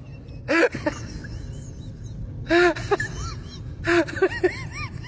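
A pet's short rising-and-falling cries, several in a row with a quick run of them near the end.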